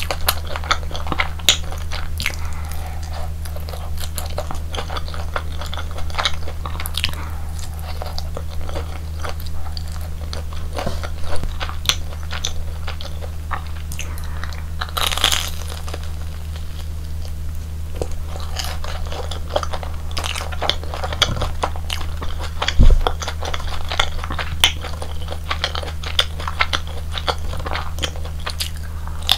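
Close-miked bites and chewing of crispy fried Korean hotdog, with irregular crunches and crackles over a steady low hum. A single low thump comes about 23 seconds in.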